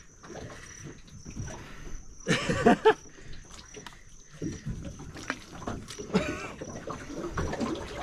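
Soft tidal mud squelching and water sloshing as a man shoves a grounded boat across a mudbank. A loud grunt of effort comes about two seconds in, and a shorter one near six seconds.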